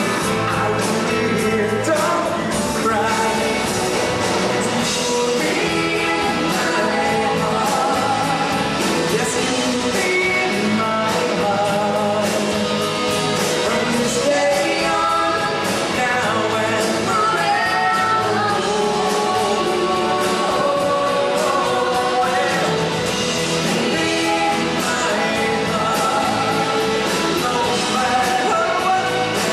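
Live amplified pop-rock band, with drums, keyboards and electric guitars, playing while singers sing.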